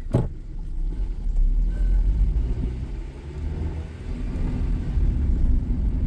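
Honda Civic engine with rod knock running under way, heard from inside the cabin as a rough low rumble with a fast knock in it. It grows louder over the last couple of seconds as the car pulls along. A single sharp knock stands out right at the start.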